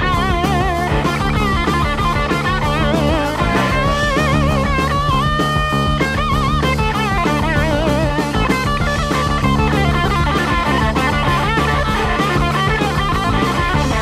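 Live hard rock band playing an instrumental break: an electric guitar plays a lead with wide vibrato over bass and a steady drum beat, holding one bent note for about a second midway through.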